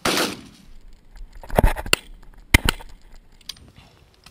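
A shotgun shot, a loud sudden blast that dies away over a fraction of a second, followed about a second and a half later by a few sharp metallic clicks and clinks, the last two about a second apart.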